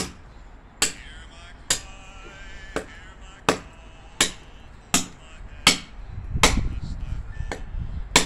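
Machete chopping a dry branch into short pieces: a steady run of sharp strikes, about one every three-quarters of a second, some ten in all. A low rumble rises underneath in the last couple of seconds.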